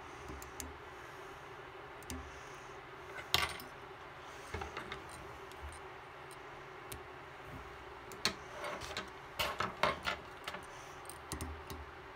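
Light clicks, taps and rustles of small fly-tying tools being handled at the vise, with a sharp click about three seconds in and a cluster of quick taps near the end.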